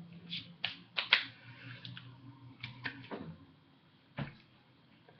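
About ten short, soft clicks and taps, most likely hands and fingers touching and brushing together during ASL signing, the loudest just after a second in, over a low hum that fades out about three seconds in.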